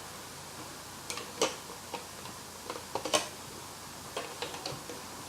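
Plastic Lego pieces clicking and knocking as they are handled and pressed back together: about ten separate sharp clicks, the loudest about a second and a half in and again just after three seconds.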